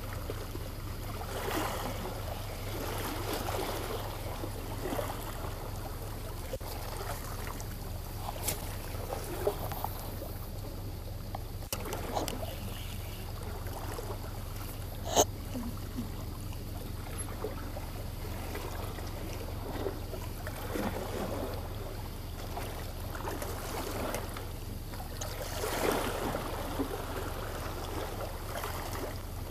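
Sea water lapping and splashing against shore rocks in soft swells every few seconds, over a steady low hum. There is one sharp click about fifteen seconds in.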